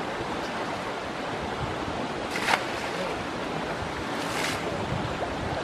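Steady rush of shallow river water, with two splashes as buckets of water are thrown over a bathing Asian elephant: a louder one about two and a half seconds in and another near four and a half seconds.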